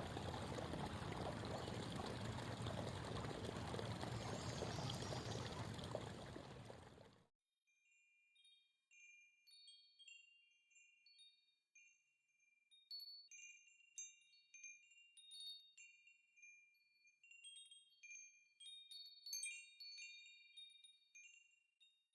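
Creek water babbling over stones, fading out and stopping about seven seconds in. A run of high, ringing chime notes follows, struck irregularly and growing busier near the end.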